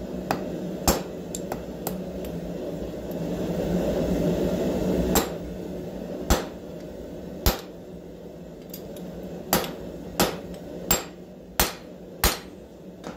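Hammer blows on metal as a rivet is set and peened over: about ten single strikes with short pauses between them, coming quicker near the end, over a steady low rumble.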